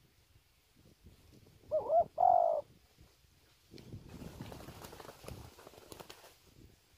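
Spotted dove cooing once about two seconds in: a short wavering note, then a longer held one. Low rustling with light clicks follows for a few seconds.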